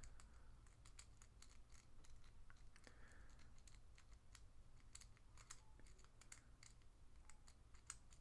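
Faint, irregular clicking and scraping of a dog-tag lock pick working the pins inside a padlock. The thin pick's jagged edge makes it rough and scratchy going in and out of the keyway.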